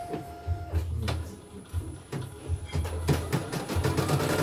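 CNY computerized home embroidery machine: a short beep near the start, a few knocks, then about three seconds in it starts stitching, with rapid needle strokes and a motor whine that rises. It starts straight away and runs normally, its stiff turning now cured.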